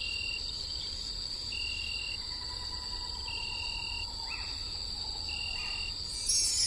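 Night insects chirring steadily and high-pitched, with a short high call that repeats about every two seconds, four times.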